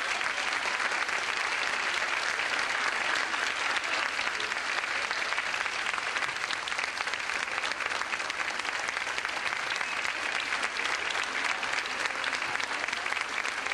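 A large audience applauding steadily, with no break.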